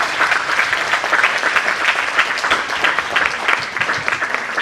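Audience applauding, many hands clapping steadily, thinning out towards the end.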